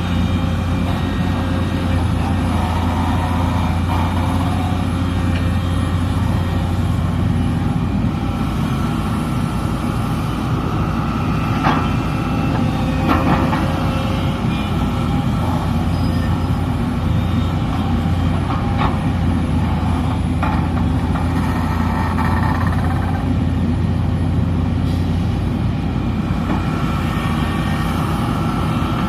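SANY SY330H hydraulic excavator's diesel engine running steadily during truck loading, with a few sharp knocks in the middle.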